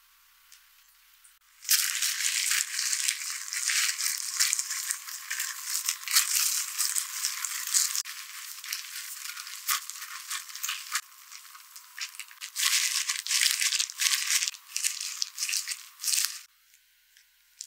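Thin plastic food-prep gloves crinkling and rustling as hands mix and squeeze sticky seasoned rice in a glass bowl. A crisp, crackly rustle starts about two seconds in, eases off somewhat in the middle, picks up again and stops about a second before the end.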